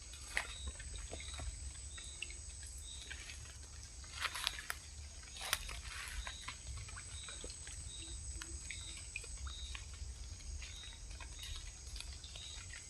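Outdoor wildlife ambience: a steady high insect drone with a short chirp repeating about twice a second, and a few sharp clicks and knocks, the loudest about four to five and a half seconds in.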